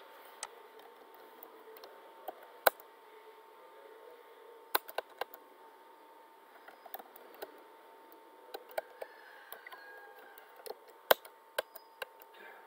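Computer keyboard and mouse: scattered sharp clicks, some in quick runs of keystrokes, over a faint steady electrical hum.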